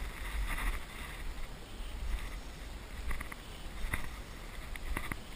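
Outdoor ambience with a steady low wind rumble on the microphone and light hiss, broken by a few short clicks or taps in the second half.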